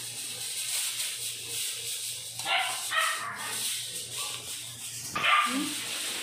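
A dog barking in two short bouts, a few barks about two and a half seconds in and again after about five seconds, over a steady low hum.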